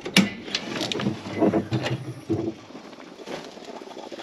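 The latch on a New Holland tractor's hood clicks open sharply, followed by a couple of seconds of metal clanks and rattles as the hood is lifted.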